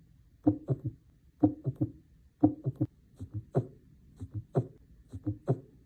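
Recorded heart sounds in a gallop rhythm, about one beat a second: each beat is the normal lub-dub (S1 and S2) plus an extra third heart sound, the abnormal S3 or S4 sound that marks a gallop. About three seconds in, the clusters change, with an extra faint sound now coming just before each lub.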